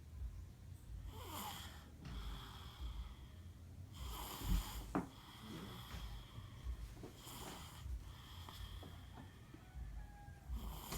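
Small child snoring in sleep: four snores about three seconds apart, with softer breaths between them.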